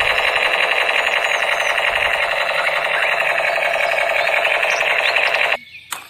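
Battery-operated toy gun playing its electronic rapid-fire sound effect, a steady machine-gun-like rattle that cuts off suddenly near the end.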